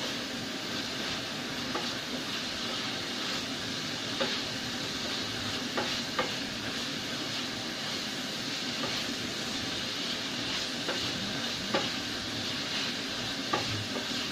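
Ground pork sizzling in a stainless steel saucepan as it is stirred with a spatula: a steady frying hiss, with a few sharp taps of the spatula against the pan.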